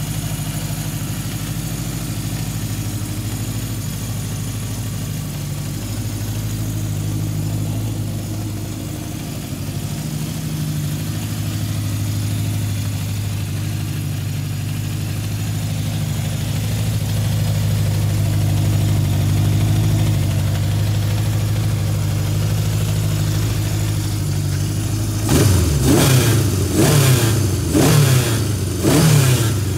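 Honda CB750 Four K6's air-cooled inline four running at a steady idle through its original four-into-four exhaust, then blipped several times in quick succession near the end, each rev rising and dropping back to idle.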